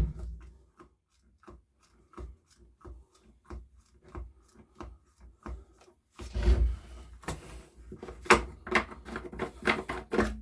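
Handling noise from a Makita BHX2500 leaf blower while its fuel is checked: scattered clicks and knocks, then from about six seconds in a denser run of rubbing and clatter.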